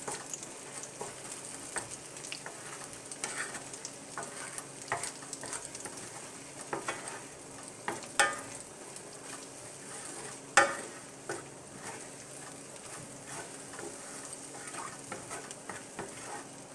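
Eggs sizzling in oil in a cast-iron skillet while a wooden spatula stirs and scrapes them around the pan. There are a few sharp knocks; the loudest comes about ten seconds in.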